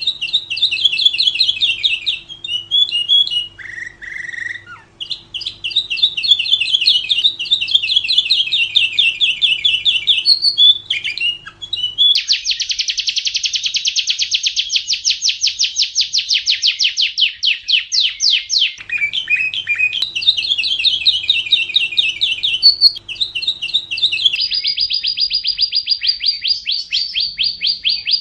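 Lovebird singing in fast, high chattering trills. In the middle comes a long, evenly pulsed rapid trill lasting several seconds, and near the end a steady high note with rapid pulses.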